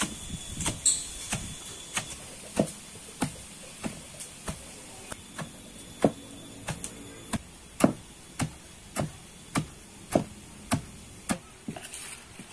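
Long wooden pestle pounding cassava leaves in a stone mortar: steady, evenly spaced thuds a little under two a second. Near the end the pounding stops and gives way to a few lighter knocks.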